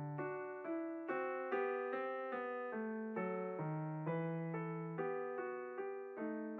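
Background piano music: a gentle run of single and chorded notes, about two or three a second, each fading after it is struck.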